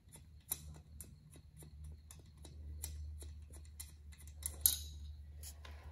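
Ratchet socket wrench clicking in quick, uneven runs of light ticks as it is worked back and forth to loosen a wheel nut, over a steady low hum.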